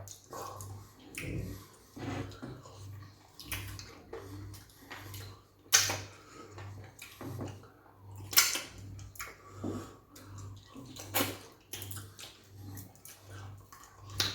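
Close-up wet eating sounds of fufu and peanut soup: lip smacks, chewing and slurping, with sharp smacks at irregular moments, the loudest three spread through the middle and later part.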